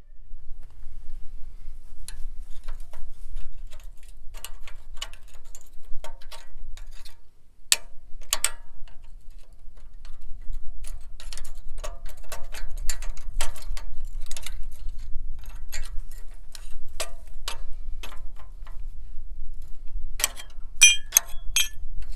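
Irregular metallic clicks and clinks of a screwdriver working against the steel knife sections of a New Holland 451 sickle bar mower's cutter bar as the worn blades are pried off, over a low steady rumble. A quick run of sharper clinks comes near the end.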